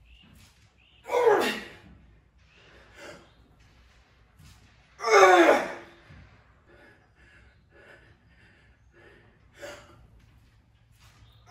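A man's loud, strained vocal groans while front squatting a heavy barbell: two big ones, about a second in and about five seconds in, each falling in pitch. Shorter, quieter gasps and breaths come in between.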